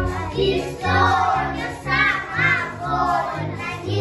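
A group of young children singing a Russian folk song together, over an instrumental accompaniment with a steady bass beat.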